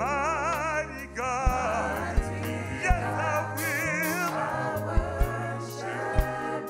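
Gospel worship music: a voice singing long held notes with a wide vibrato over a sustained low accompaniment, with drum hits about every second and a cymbal wash about halfway through.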